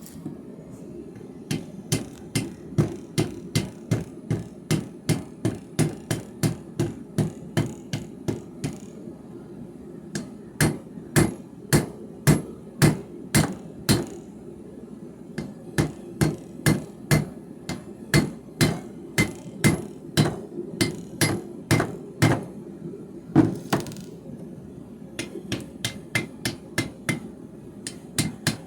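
Hand hammer striking heated steel in quick runs of ringing blows, about two or three a second, with short pauses between runs: metal being forged by hand. A steady low hum runs underneath.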